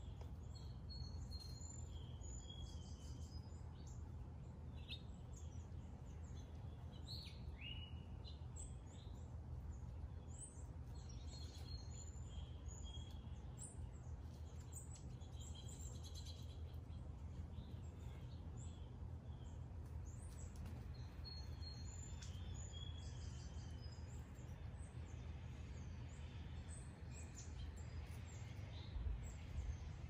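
Small backyard birds chirping and calling in many short high notes, busiest early and thinning out toward the end, over a steady low rumble. A brief low thump comes near the end.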